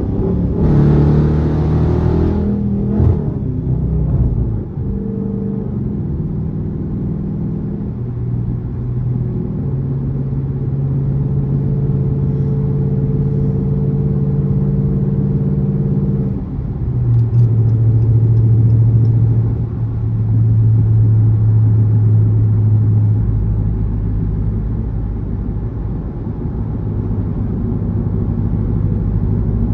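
Dodge Charger R/T's 5.7 L Hemi V8 running through a catless, gutted exhaust while driving. A surge of noise in the first couple of seconds is followed by a steady drone; the note drops about halfway through and settles into a deeper rumble near the end.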